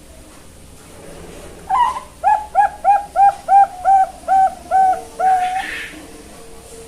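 Young zebra dove (perkutut) cooing: an opening note, then a quick run of about eight short coos, about three a second, ending in one longer held note. It is a juvenile still learning its song.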